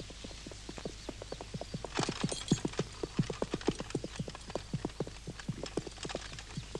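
Horse's hooves clip-clopping along at a steady pace, about four to five hoofbeats a second, with a short noisy burst about two seconds in.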